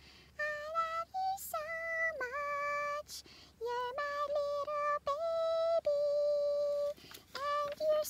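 A woman singing a wordless tune in a high voice: a slow melody of held notes with short breaks, some notes sliding up or down at the start.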